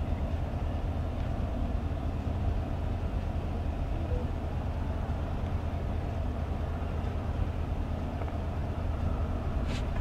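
Truck engine idling, a steady low rumble, with a few sharp clicks near the end.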